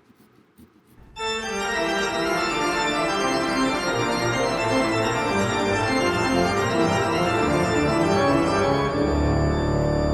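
Background organ music that comes in suddenly about a second in, with sustained chords and moving notes. A heavier bass part joins near the end.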